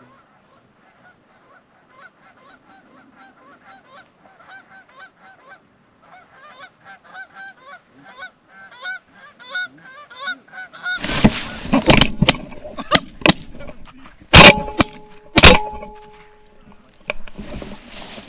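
Canada geese honking, the calls growing louder and more frequent as the flock comes closer; then, about eleven seconds in, a volley of some six shotgun blasts over four seconds, the last two the loudest.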